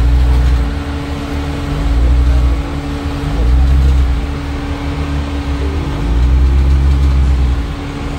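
A rock-crawling Jeep's engine pulling it slowly up a steep boulder ledge. The throttle comes on in about four surges, each rising and then easing off.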